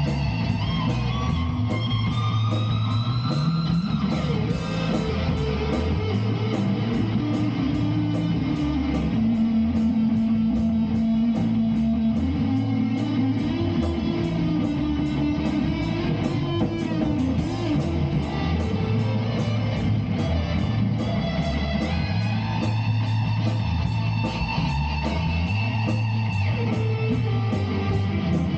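Instrumental rock jam: electric guitar playing over changing low bass notes, with a steady beat.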